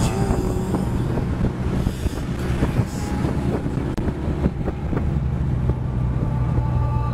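Vehicle engine and road noise at highway speed, a steady low drone, with wind buffeting the microphone.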